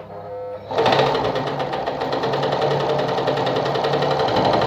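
Sartina e-100 sewing machine starting up about a second in and running steadily, sewing a straight stitch with a fast, even stitching rhythm.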